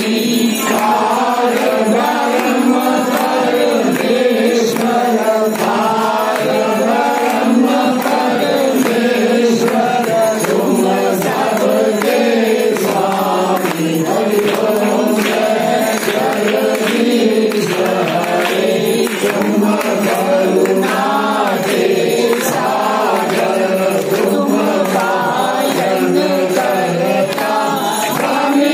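A group of voices singing a Hindu aarti hymn together, accompanied by struck percussion ringing in time.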